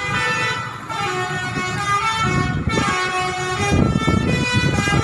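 Bus 'telolet' multi-tone musical horn (Basuri type) playing a tune: a run of held notes that step up and down in pitch. An engine rumbles underneath, heavier in the second half.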